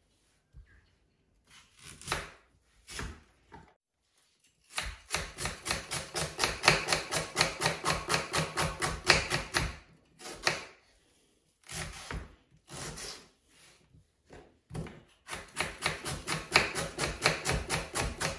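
Knife slicing an onion on a wooden cutting board: quick, even knocks of the blade on the board, about five a second, in two long runs, with a few separate knocks before and between them.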